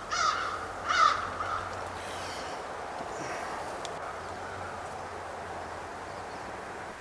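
A crow cawing, about three harsh caws in the first second and a half, followed by faint steady outdoor background.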